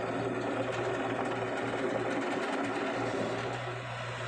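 A machine's engine running steadily with a fast, even mechanical clatter and a constant low hum.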